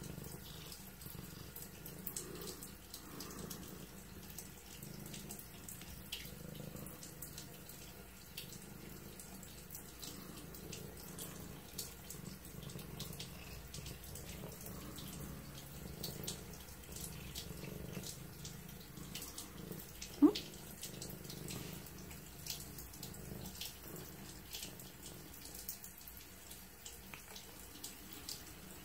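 Domestic cat purring steadily while being scratched on the head, with one short rising chirp about two-thirds of the way through.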